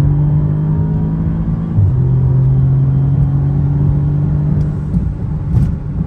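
Tuned Audi S3's turbocharged 2.0-litre four-cylinder accelerating hard, heard from inside the cabin. About two seconds in, a quick dual-clutch upshift from third to fourth briefly drops the engine note before it pulls on. The engine eases off near the end.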